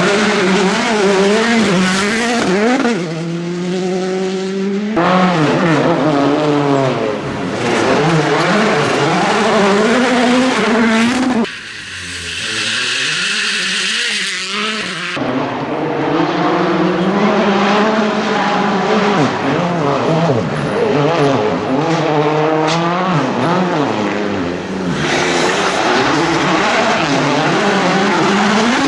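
World Rally Cars' turbocharged four-cylinder engines revving hard, their note climbing and dropping through quick gear changes as the cars pass, in several separate passes. A little before halfway, a few seconds of hiss replace most of the engine note.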